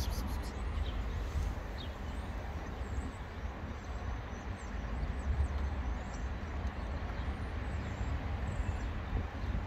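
Steady outdoor street background: a low rumble of wind and traffic, with faint high chirps scattered through it.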